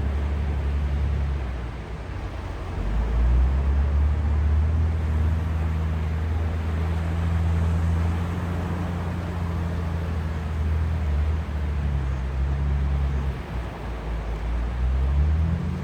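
Sea waves washing on a shore, a steady hiss of surf with a heavy low rumble underneath that swells about three seconds in and eases again near the end.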